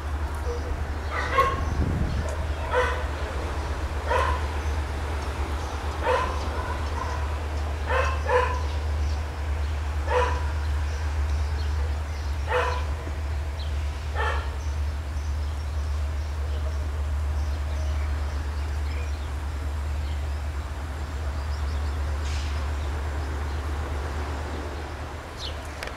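A dog barking about nine times, one bark every one to two seconds, then falling quiet about halfway through. Under it is the steady low rumble of a diesel locomotive pulling a passenger train slowly into the station.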